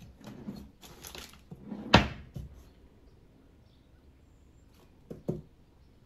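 Wooden dresser drawer rattling and knocking as a cat paws and tugs at its handle, with scuffing, then one loud sharp clack about two seconds in and two lighter knocks near the end.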